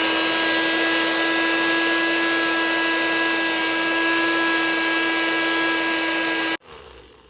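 Bullet-style personal blender grinding a jar of dry-roasted whole spices into masala powder, its motor running steadily at one pitch. It switches off about six and a half seconds in and spins down briefly.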